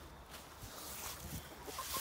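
Footsteps crunching and rustling through dry fallen leaves, with a few faint chicken clucks near the end.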